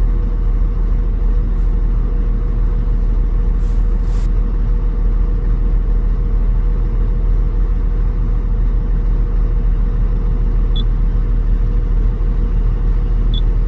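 Komatsu PC800 excavator's six-cylinder diesel engine idling steadily, a heavy low rumble with a constant hum above it.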